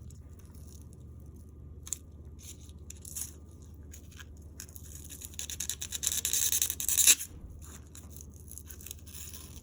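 Scissors cutting into and scraping through the tough, foam-like casing of a praying mantis egg case (ootheca): a few isolated snips and clicks, then a dense run of rapid scratchy crunching about five to seven seconds in.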